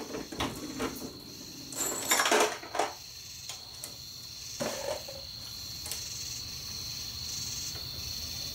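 Dillon RL 550B progressive reloading press being worked by hand while loading .45 ACP: metallic clanks and clicks of the handle stroke and shell plate indexing, loudest in a cluster about two seconds in, with single clicks scattered through.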